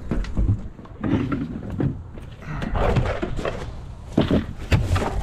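Clattering handling noise with several sharp knocks, strongest near the end: a group 27 lead-acid battery being lifted out of a plastic RV battery box.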